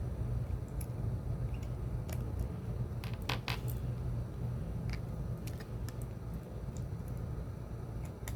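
Small scattered clicks and taps of a screwdriver working the little screw out of a plastic two-button motorcycle key fob, a couple of sharper clicks about three seconds in, over a steady low hum.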